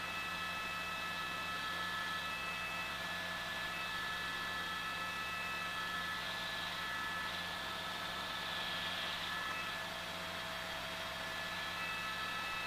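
Eurocopter AS350 B2 helicopter in cruise flight, heard from inside: steady cabin noise, an even hiss with several fixed high whining tones.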